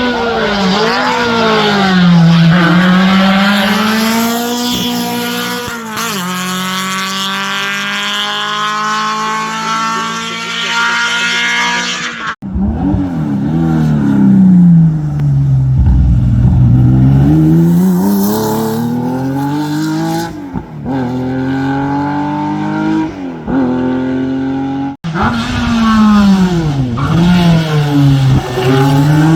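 Race car engines at full throttle on a hillclimb course, revving up and dropping back over and over as the cars shift gears and brake for corners. Twice the sound breaks off abruptly and a different car's engine takes over.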